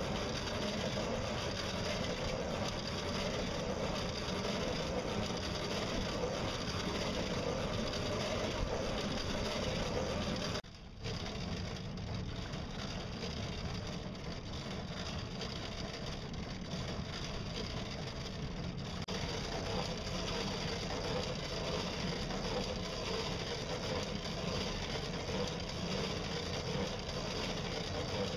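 Steady rushing noise of a small solar- and pedal-powered boat under way on choppy water, with a faint high steady tone. The sound drops out for a moment at a cut about eleven seconds in, then carries on as before.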